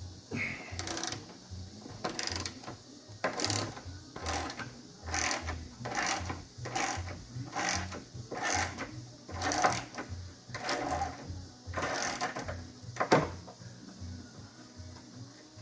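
Ratchet wrench driving a Torx bit, backing out a tight Torx bolt in a steady series of clicking strokes, roughly one every three-quarters of a second. The strokes end in one sharp click about 13 seconds in.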